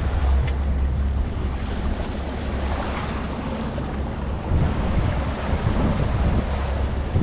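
Wind buffeting the microphone over the wash of the sea around a fishing boat offshore: a steady, low rumbling noise.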